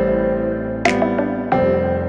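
Background music: sustained electric-piano chords over a steady beat with a crisp hit roughly every second and a half.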